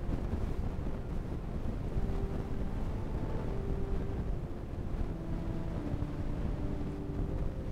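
A steady low rumble of room noise, with faint held musical notes above it that change pitch every second or so.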